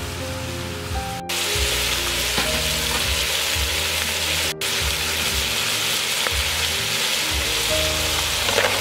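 Snails in curry paste frying in a hot wok, sizzling steadily, louder from about a second in and with two very brief dropouts. Background music plays throughout.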